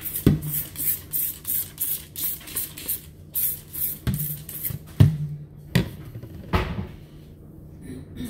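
Trigger spray bottle squirting cleaning liquid onto a stainless steel sink in quick strokes, about three squirts a second, stopping about three and a half seconds in. Then a few sharp knocks, the loudest in the middle.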